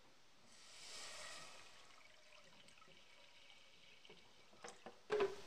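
Water poured from a jug into a saucepan of dry pasta and seasoning: a splashing hiss that swells about half a second in, then settles into a softer running pour. A few sharp knocks come near the end.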